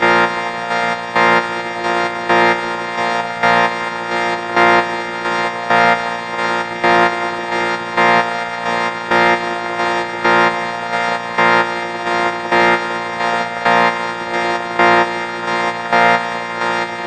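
The 4ormulator V41 sound effect: a steady, buzzy, many-toned drone that swells louder in a short pulse about once a second, repeating evenly.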